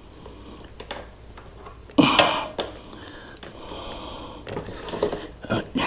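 Scattered small metallic clicks and rattles from handling an e-bike's rear chain and derailleur, with one louder clatter about two seconds in.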